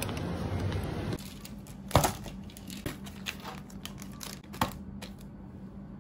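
Plastic packaging crinkling as packs of pens and a pad of paper are handled and laid on a desk, with scattered clicks and two sharper clacks. Before this, about the first second holds a steady background hum.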